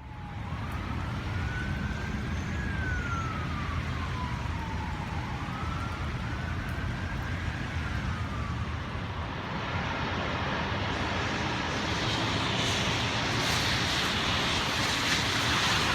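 A siren wailing in two slow rising-and-falling sweeps over a steady low rumble and hiss. The hiss grows louder over the last few seconds.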